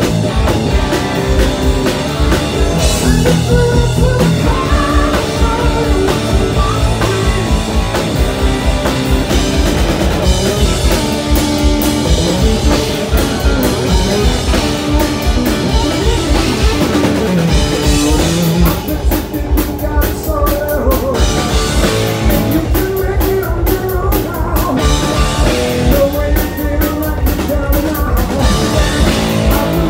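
Live rock band playing loud: driving drum kit and distorted Telecaster-style electric guitar, with a male lead vocal sung over it.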